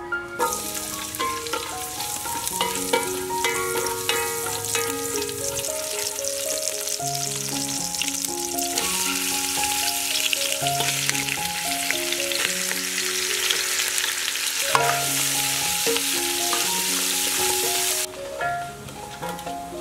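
Meat and vegetables frying in hot oil in an aluminium pot, a loud sizzle that starts as the food is tipped in about half a second in, with a ladle stirring; the sizzle cuts off suddenly near the end. Melodic background music plays under it.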